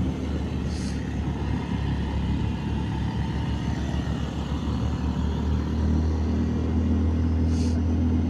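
Motorcycle engine running while riding at about 35 km/h, with wind and road noise; the engine note grows stronger from about six seconds in as the bike picks up speed again.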